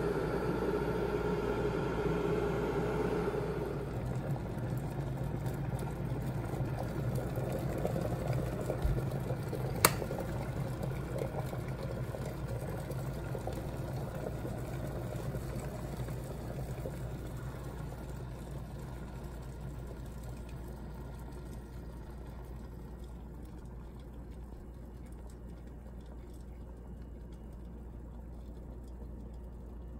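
Glass electric kettle heating water to the boil: a steady rushing, bubbling noise. It is louder for the first few seconds. A single sharp click comes about ten seconds in, and the noise then fades steadily.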